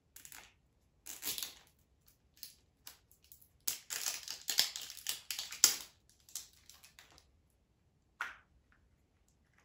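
Hands working open a small plastic surprise egg from a Rainbocorns toy: scattered plastic crinkling and clicking, thickest through the middle few seconds, with one sharp snap about halfway through.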